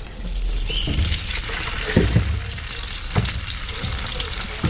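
Hot oil sizzling steadily in a frying pan as fried fish are moved to the plate, with a few short knocks of a metal spatula about two and three seconds in.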